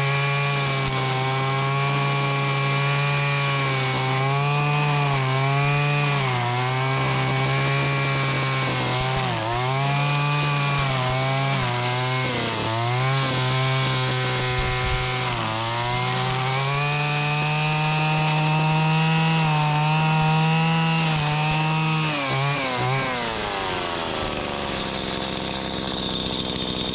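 Stihl FS80/FS85 two-stroke string trimmer with a freshly rebuilt top end, running at high throttle while cutting; its pitch dips briefly several times under load, then about 23 seconds in the throttle is released and it falls back to a steady idle.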